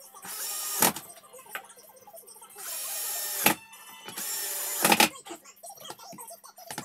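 Homemade grinding machine's small electric motor run in three short bursts, each under a second and each ending in a sharp click, over a steady low hum.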